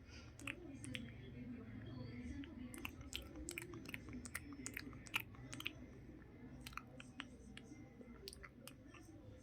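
Close-miked chewing and mouth sounds, with frequent irregular sharp wet clicks over a low steady hum.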